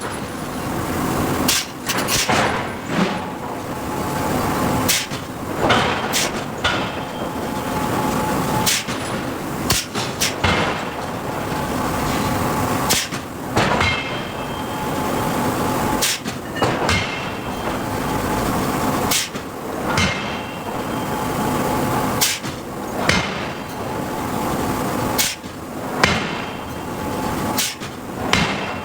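Hydraulic forging hammer striking hot steel, heavy blows falling irregularly about every one to two seconds, some with a short metallic ring, over a steady hum of shop machinery.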